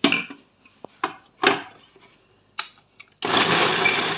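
A few short clinks and knocks of a mixer-grinder jar and lid being handled, then about three seconds in an electric mixer grinder starts up, grinding blanched ginger pieces with a loud, steady noise.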